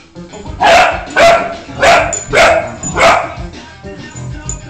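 Vizsla puppy barking five times in quick succession, about two barks a second, then stopping about three seconds in.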